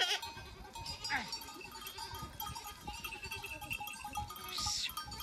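Sheep and goats of a grazing flock bleating, with separate calls at the start, about a second in and near the end.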